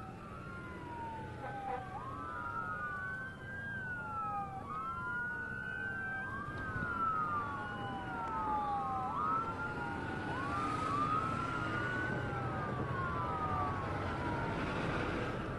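Several emergency vehicle sirens wailing at once and out of step, each rising quickly and then sliding down in pitch every couple of seconds, over a steady low rumble.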